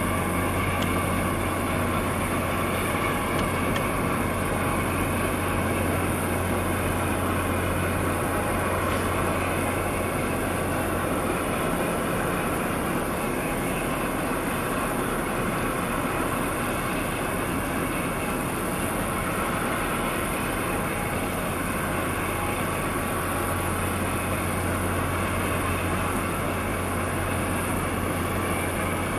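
Steady low drone of ship diesel engines from a container ship and the tugboat pushing against its hull. The deepest hum eases off about halfway through and comes back near the end.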